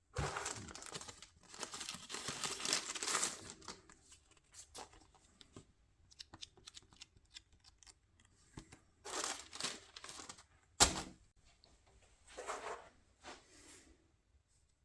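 Packaging being opened and handled: bursts of rustling, crinkling and tearing, with scattered small clicks and one sharp knock about two-thirds of the way through, the loudest sound.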